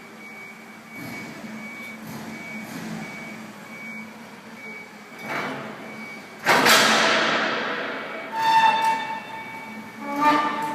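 A heavy vehicle's reversing alarm beeping steadily. About six and a half seconds in comes a sudden loud rush of hiss that fades away, and near the end there are two short squeals.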